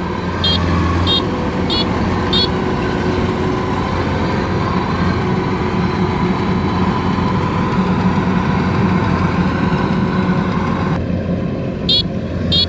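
Kubota DC-93 combine harvester running steadily, its 93 hp four-cylinder turbocharged diesel under a continuous hum. A regular high ticking repeats a few times near the start and again near the end.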